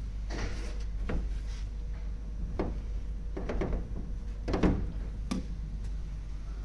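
A framed sliding glass window knocking and clunking about six times against the metal wall panel as it is test-fitted into its cut opening, the loudest knock about four and a half seconds in, over a steady low shop hum.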